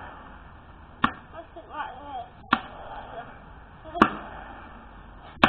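Small axe chopping into a log in an underhand chop, four sharp strikes about a second and a half apart.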